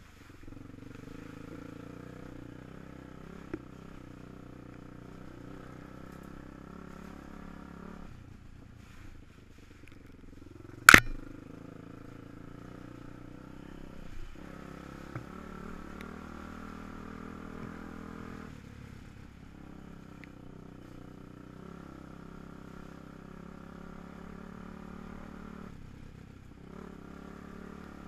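Quad bike engine running under changing throttle, its note rising and easing off, falling away for a couple of seconds around eight to ten seconds in. A single sharp, loud knock about eleven seconds in, with a few small clicks.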